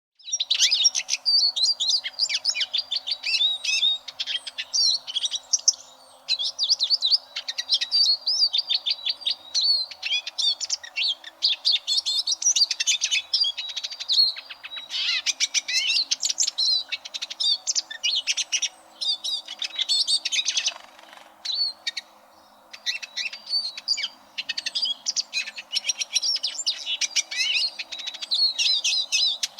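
Eurasian siskin singing: long runs of fast, high twittering and trilling phrases, broken by a few short pauses, the longest about two-thirds of the way through. The song starts abruptly out of silence at the very beginning.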